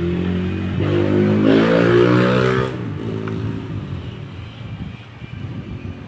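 A motor vehicle's engine revving, its pitch climbing, loudest from about one second in to just under three seconds, then dying away.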